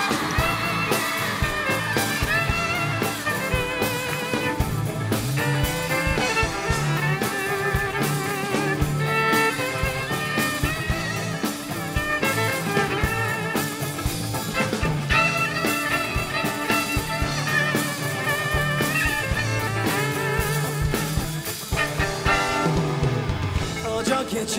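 Live band music in an instrumental break between sung verses: a wavering lead melody line over a steady beat.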